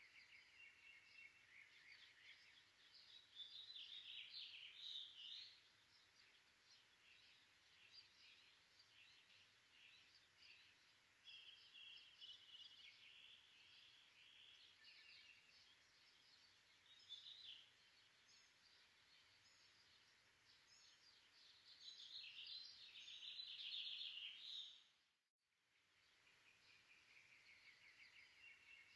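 Faint birdsong: many small birds chirping and trilling. It swells twice, fades out for a moment near the end, then starts again.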